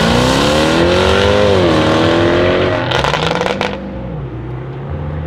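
Jaguar F-Type SVR's supercharged V8 accelerating hard. The exhaust note climbs, dips briefly at an upshift about a second and a half in, and climbs again. About three seconds in, a rapid burst of exhaust crackles comes as the throttle lifts, and then a lower, quieter engine note follows.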